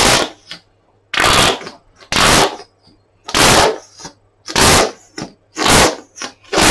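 Squeezed container of Evo-stik Instant contact adhesive spluttering as glue and air spurt out, one short burst with each squeeze about once a second. The container is nearly empty.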